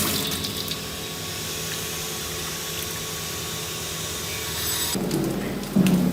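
Vegetable slicing machine running, its blades cutting tubers into thin slices with a steady cutting noise that gets louder near the end.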